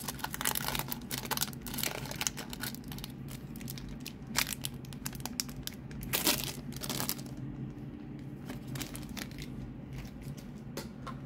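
Foil wrapper of a Pokémon trading-card booster pack crinkling in the hands as it is opened, dense crackling for the first few seconds, then sparser crinkles and clicks as the cards come out and are handled.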